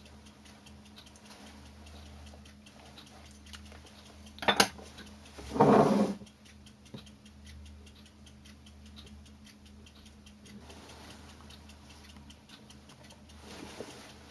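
Light, irregular clicking and tapping of small hard objects, with a sharp knock about four and a half seconds in and a louder clatter a second later.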